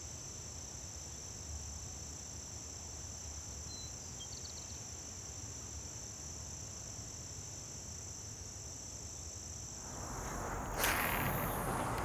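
Insects trilling in a steady, high continuous drone, with a few faint chirps about four seconds in. About ten seconds in the drone stops and a louder, even rushing noise takes over, with a sharp click shortly after.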